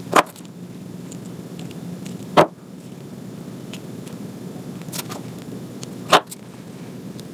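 Metal jewellery pliers tapping down on a tabletop: three sharp knocks, one at the start, one about two seconds later and one near the end, with a fainter tick just before the last. A steady low hum runs underneath.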